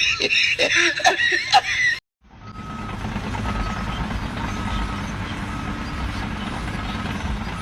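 Reversing alarm of a heavy vehicle beeping about once a second, each beep short and at one pitch, over a steady low engine rumble. The beeping starts after a short break about two seconds in, following voices and laughter.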